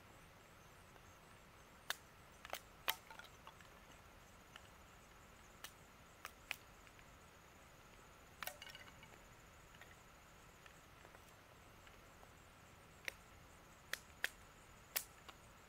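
Sticks of wood being chopped or broken by hand: about a dozen sharp, irregular cracks and knocks, in clusters with a pause of several seconds in the middle.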